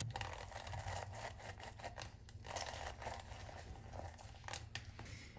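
Lemon half twisted and pressed down on a plastic hand citrus juicer: faint, irregular scraping and rubbing with a few small clicks.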